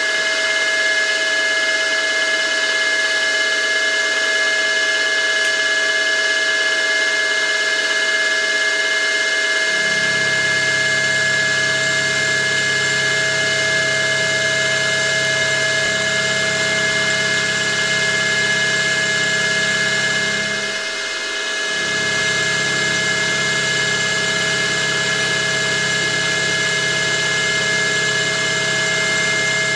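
Milling machine spindle running steadily with a whine of several constant tones while an end mill cuts a slot, roughing it to width. A lower hum joins about ten seconds in, drops out for about a second a little after twenty seconds, then resumes.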